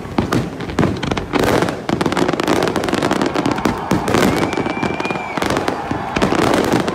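Fireworks display: a dense, continuous barrage of bangs and crackles. A steady high whistle rises over it about four seconds in and lasts about a second.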